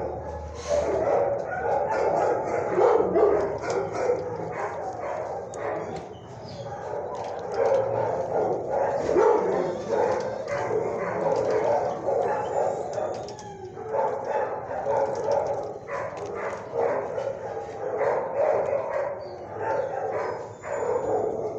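Shelter dogs barking and yipping without a break, the barks overlapping into a steady din.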